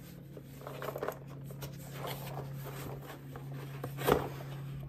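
Packaging and items being handled and rummaged through, with scattered light rustles and clicks and one sharp knock about four seconds in, over a steady low hum.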